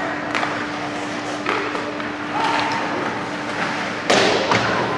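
Ice hockey game sounds in an arena: skates and sticks scraping and clacking on the ice under distant crowd voices and a steady hum. A loud crash comes about four seconds in.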